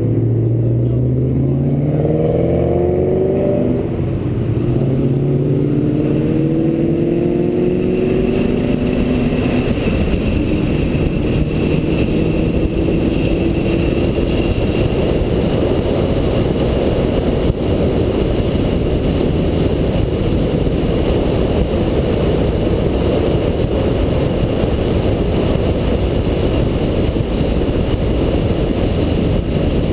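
2007 Shelby GT500's supercharged 5.4-litre V8 accelerating, its pitch climbing and dropping back several times in the first ten seconds as it shifts up. It then settles into a steady run at speed with road and wind noise.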